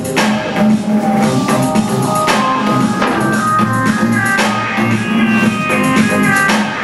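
Music with a steady drum beat and sustained instrumental notes.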